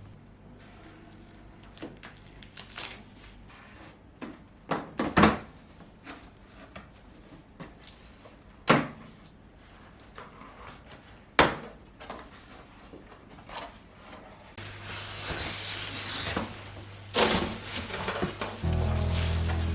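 Household handling sounds: several sharp knocks and clacks of objects being moved and set down, three of them loud, then a few seconds of even hissing. Background music comes in near the end.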